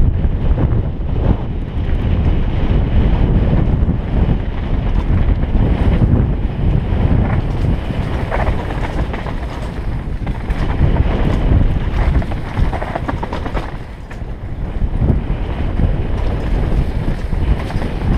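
Wind buffeting a helmet-mounted camera's microphone at speed, over the clatter and rattle of a downhill mountain bike and its tyres on a rough, stony dirt trail.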